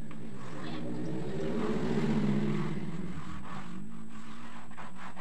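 A motor engine passes by: it swells to its loudest about two seconds in and fades away, over a steady low hum.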